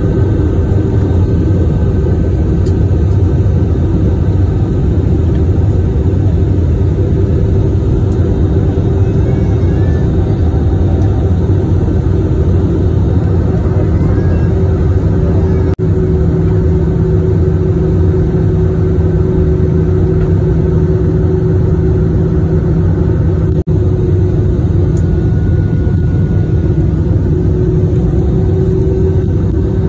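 Steady cabin noise of a jet airliner in flight: the even rush and hum of the engines and airflow, with a low steady tone that comes in about halfway and drops out some eight seconds later.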